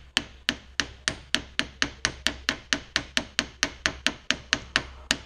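Hammer tapping in a steady, even rhythm of about four light blows a second, starting a CV joint onto the splines of an Audi A4 drive axle.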